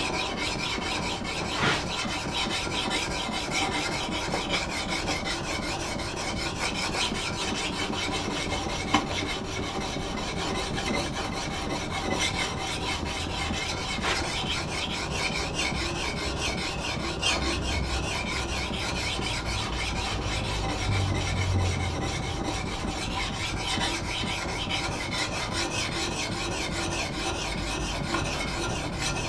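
Worn DMT diamond sharpening plate rubbed back and forth over the steel bevel of a hewing hatchet: a steady scraping of quick strokes, without pause. It is honing the bevel with a plate that is finer than the coarse stones before it.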